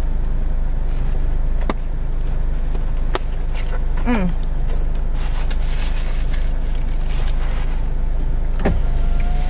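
Steady low rumble inside a car with its engine running, broken by a few sharp clicks and a brief falling tone about four seconds in.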